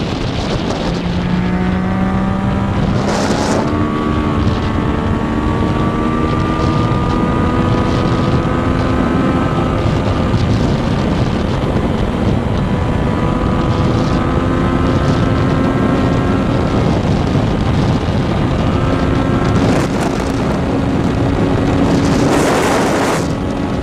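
Inline-four sport motorcycle engine pulling hard under acceleration, its pitch climbing steadily in several long runs, each ending in a drop at a gear change, over heavy wind rush on the rider's microphone. A loud rushing sound swells near the end.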